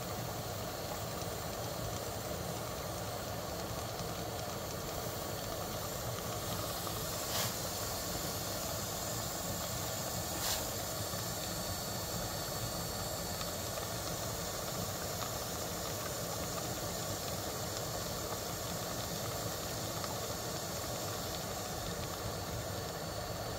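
Household vacuum cleaner running with a steady hiss. It is drawing a vacuum on the engine so the oil stays in the sump while the oil level sensor port is open. Two light clicks come about a third of the way in.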